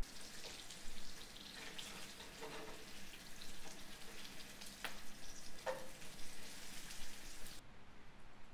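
Food sizzling and crackling in a pan on a camp stove, with two sharp clicks a little past the middle. The sizzle cuts off suddenly near the end.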